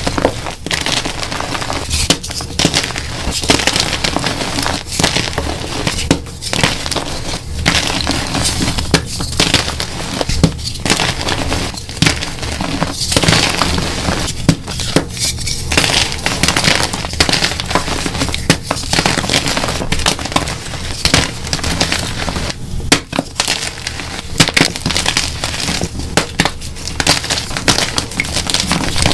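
Bare hands squeezing and crushing dyed blocks of magnesium-carbonate gym chalk. The dry chunks crunch and crumble into powder in a dense, continuous run of crackles and snaps.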